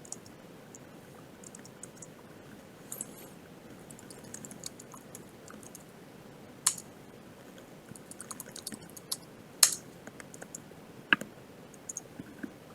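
Typing on a computer keyboard: scattered, faint keystrokes with a few sharper, louder key clicks.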